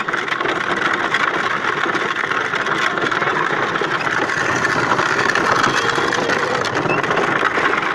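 Ride-on toy vehicle driving along a gravel road: a steady rattling rumble of its wheels over the gravel.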